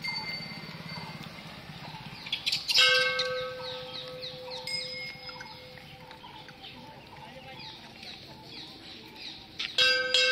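A metal bell is struck about three seconds in and rings on with a long, steady tone, then is struck several times again near the end. Birds chirp throughout in the background.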